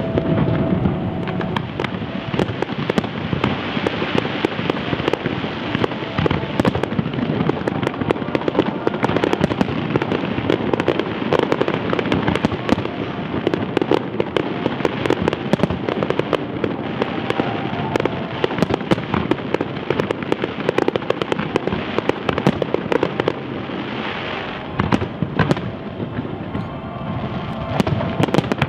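Aerial firework shells bursting in quick succession, a dense, continuous barrage of bangs and crackling.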